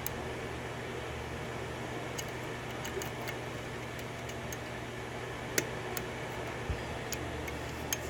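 Small metallic clicks and ticks of a lock pick working the pins of a six-pin DOM pin-tumbler lock during single-pin picking, scattered irregularly with the sharpest about five and a half seconds in, over a steady hum.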